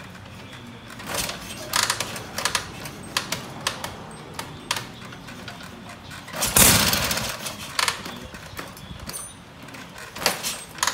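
Vintage Harley-Davidson JD's F-head V-twin being kick-started: a series of clanks and knocks from the kick-start lever and the engine turning over, without the engine catching. One louder burst of about half a second comes about six and a half seconds in.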